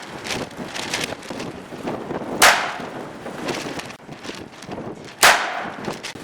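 North American Arms .22 LR mini revolver firing two single shots, about three seconds apart: one a little over two seconds in, one near the end.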